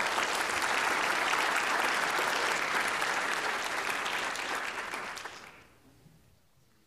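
Audience applauding at the end of a talk, steady at first and then dying away near the end.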